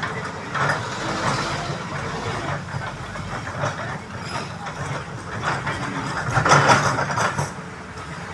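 Diesel engine of an excavator running steadily under irregular scraping and clattering from digging; the noise peaks about six and a half seconds in.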